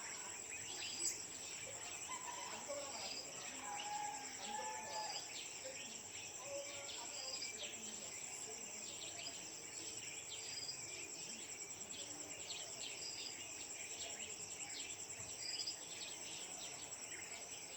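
A pre-dawn chorus of crickets and other insects: one steady high-pitched trill throughout, with a short note repeating every second or two and scattered brief bird chirps. Faint distant men's voices talking in the first few seconds.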